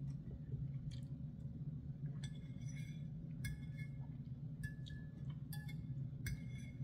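A metal fork clinking and scraping against a ceramic plate while cutting and picking up food, about six short ringing clinks in the second half, over a steady low hum.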